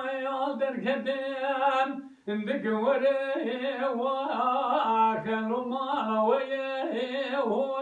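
A man singing a folk song unaccompanied, holding long wavering notes, with a short breath about two seconds in before the next phrase.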